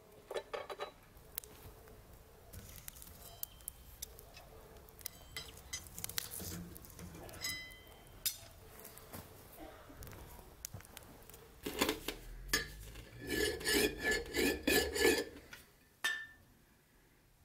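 Workshop handling sounds: a knife blade clicking against the rim of a metal pipe just after the start, scattered scrapes and ticks, then a quick run of about half a dozen ringing clinks about two-thirds of the way through.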